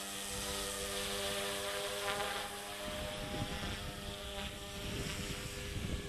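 Eachine E150 collective-pitch RC helicopter's motor and rotors running with a steady whine whose pitch shifts slightly in the first couple of seconds. Gusty wind buffets the microphone from about three seconds in.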